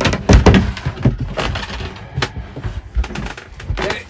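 Wooden engine-box cover on a sailboat being handled and lifted off: a run of knocks and clunks of wood, loudest about half a second in.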